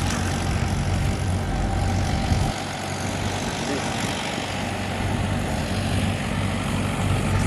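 An engine running steadily with a low hum. The hum drops away about two and a half seconds in and comes back weaker a couple of seconds later.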